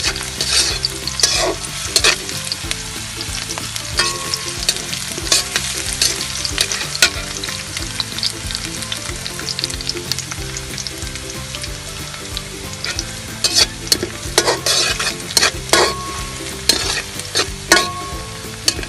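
Chopped onions, garlic and dried red chillies sizzling in hot oil in a pan, stirred, with frequent scrapes and knocks against the pan.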